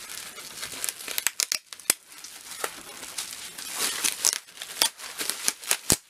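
Bubble wrap crinkling and crackling as it is handled and pulled open, with irregular sharp clicks and the cardboard mailer being handled.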